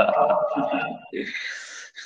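A man laughing softly, choppy and pitched at first, ending in a short breathy exhale about one and a half seconds in.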